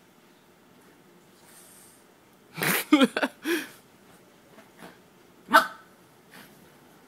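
Small dog giving a quick run of short, sharp barks about two and a half seconds in, then one more yap about two seconds later, while play-fighting with a kitten.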